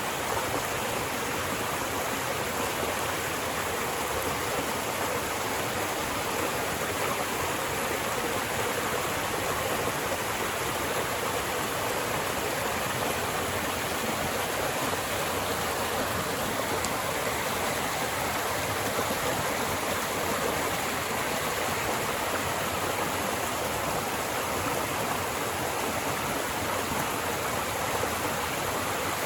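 Rushing water, a steady, loud, unbroken rush with no changes.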